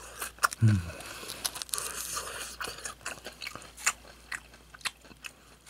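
A person chewing a crispy pan-fried chicken nugget close to the microphone: irregular crunching and crackling of the fried coating. A brief voiced hum a little over half a second in.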